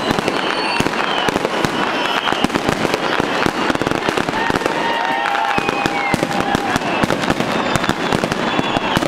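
Fireworks display: a dense, unbroken rattle of cracks and bangs from bursting fireworks and firecrackers.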